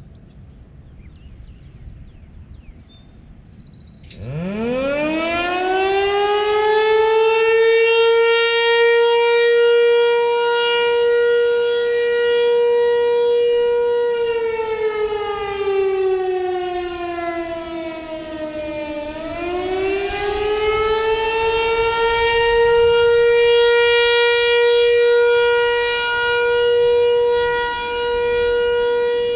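ASC T-128 outdoor warning siren starting up about four seconds in: it winds up quickly to a steady high wail and holds it. About halfway through the pitch slowly sags over several seconds, then swings back up and holds again, the custom attack signal from its new controls.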